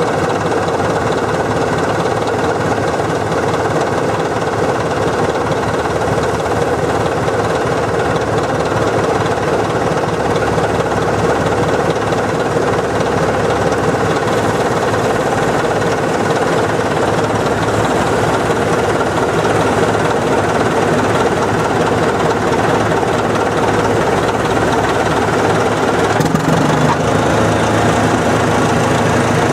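Heavy Caterpillar diesel earthmoving equipment running steadily, the engine's fast firing clatter loud throughout. About 26 seconds in, the low engine note shifts.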